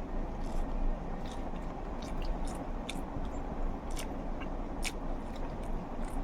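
A person chewing and eating egg curry, with irregular wet mouth clicks and smacks, over a steady low background hum.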